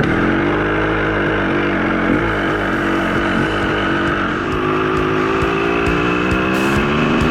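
KTM 200 two-stroke dirt bike engine with a freshly rebuilt top end, running hard under a rider. The revs rise and fall continuously.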